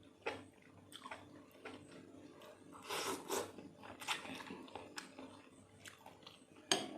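Close-miked chewing and biting of seblak, with irregular wet smacks and a few sharper crunchy bites; the strongest come about three seconds in and near the end.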